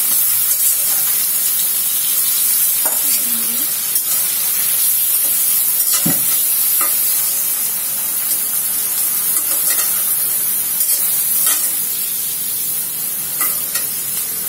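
Prawns sizzling steadily as they fry in hot oil in a metal kadai, stirred with a metal spatula that knocks and scrapes against the pan several times.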